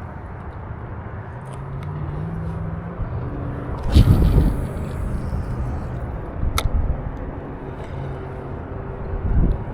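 A distant motor hums under steady outdoor rumble, its pitch stepping up and down. About four seconds in comes a loud scuffing burst with low thumps, and a sharp click follows a couple of seconds later.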